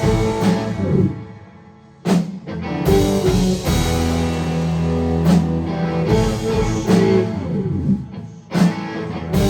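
Live rock band playing an instrumental passage on guitar, drums and organ. The band drops out about a second in and crashes back in about two seconds in, with another brief break near the end.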